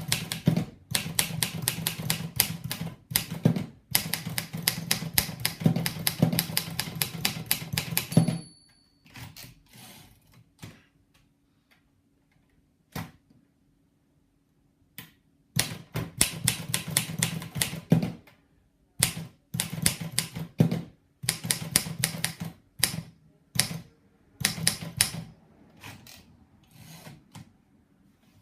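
Imperial Good Companion portable typewriter being typed on in fast runs of sharp key strikes, with a long pause between two runs. A brief bell ring sounds near the end of the first run.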